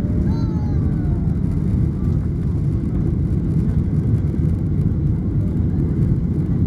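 Steady low drone of a Boeing 737-800's twin turbofan engines and rushing air, heard inside the cabin as the airliner climbs out at takeoff power just after liftoff.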